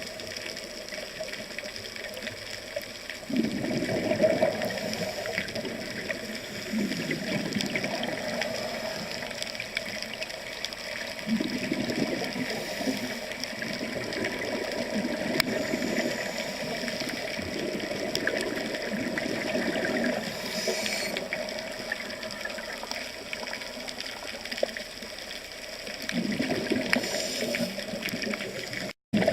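Rushing, bubbling water noise, swelling louder every few seconds, with a brief cut-out near the end.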